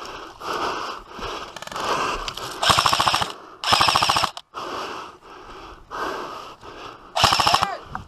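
Airsoft rifles firing in rapid full-auto bursts. Three loud bursts of about half a second each come near the middle and near the end, with fainter bursts in between.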